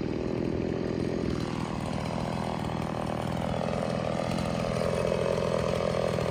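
Stihl MS 180 C-BE two-stroke chainsaw engine running at idle, not cutting, steady and a little louder in the second half.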